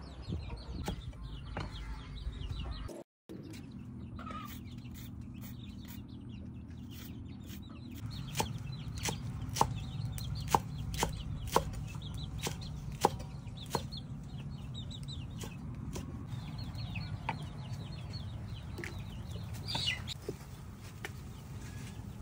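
A cleaver chopping vegetables on a thick wooden block, a run of sharp chops about two a second, with chickens clucking in the background.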